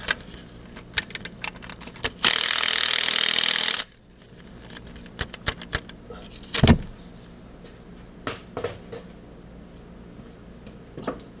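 Impact wrench running in one burst of about a second and a half on an 18 mm starter bolt in the transmission housing, loosening it. Scattered clicks of the tool and socket on metal, with one heavier knock a few seconds later.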